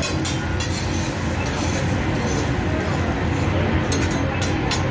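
Metal spatula scraping and clinking on a steel teppanyaki griddle, a few short strokes spread through, over a steady low hum.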